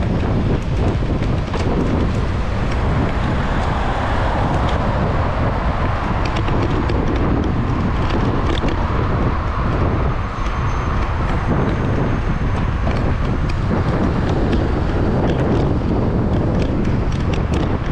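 Wind buffeting the microphone of a camera on a moving bicycle: a loud, steady rushing rumble, with scattered small clicks and knocks.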